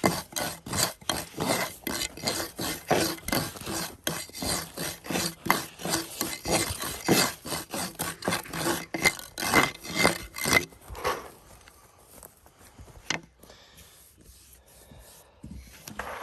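Rapid rasping strokes, several a second, that stop about ten and a half seconds in, followed by a few scattered knocks.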